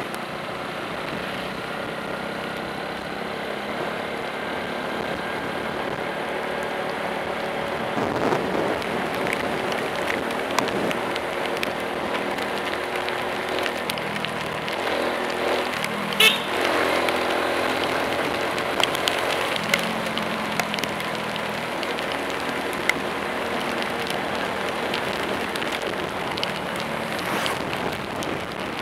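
Ride in a motor vehicle along a wet road in the rain: engine running with shifting pitch over the hiss of tyres on wet pavement and rain. A sharp knock sounds about halfway through, with a few lighter ticks after it.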